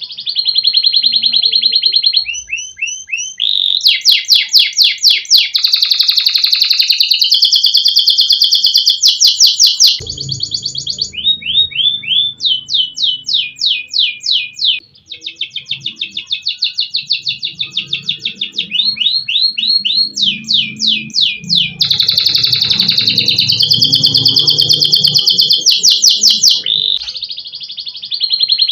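Domestic canary singing without pause: long, fast trills of repeated high notes. Each roll gives way to the next every second or two.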